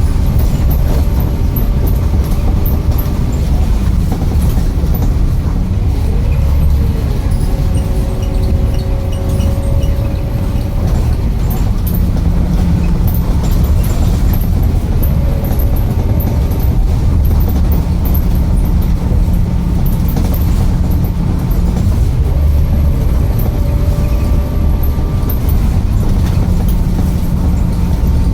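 A motor vehicle on the move: a loud, steady low rumble with whining tones that come and go and glide up and down in pitch as it speeds up and slows down.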